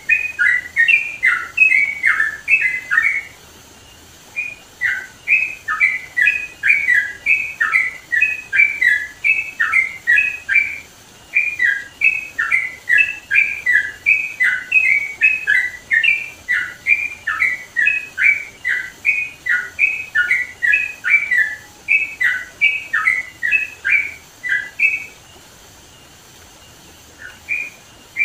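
Yellow-vented bulbul (trucukan) singing: long runs of quick, bubbly notes jumping up and down in pitch, several a second, with short breaks about 4 s and 11 s in and a longer one near the end.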